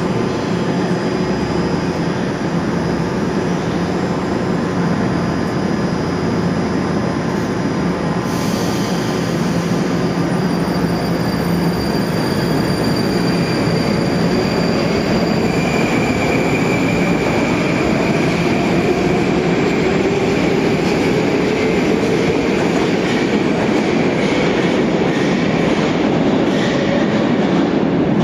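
Moscow metro 81-775/776/777 'Moskva 2020' train pulling out of a station: the traction drive's whine rises in pitch as it accelerates. This train's acceleration sound is made to resemble the older 'nomernoy' metro trains.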